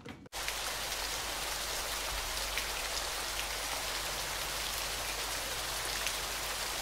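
Steady, even hiss of falling rain that cuts in suddenly a moment in, over a low hum.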